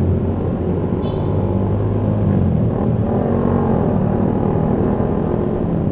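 Motorcycle engine running steadily under the rider in traffic, its pitch rising about three seconds in as it accelerates.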